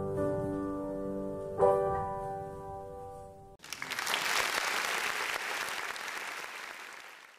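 Upright piano playing the closing chords of a piece, the last chord struck about one and a half seconds in and left to ring and decay. About three and a half seconds in, applause starts abruptly and then fades out.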